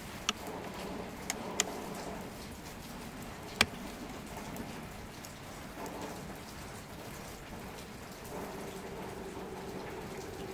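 A screwdriver working a scooter battery's terminal screw: a few sharp clicks, the loudest about three and a half seconds in, over a steady patter-like hiss. A faint steady hum comes in about eight seconds in.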